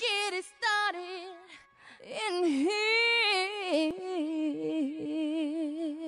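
Music: a lone sung vocal line with vibrato, holding and sliding between sustained notes with no accompaniment or beat. It is the unaccompanied opening of a pop song.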